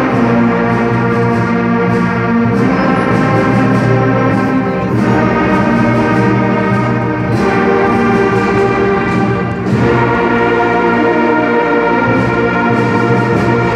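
Massed school concert band of woodwinds and brass playing together, holding slow, sustained chords that change every two or three seconds.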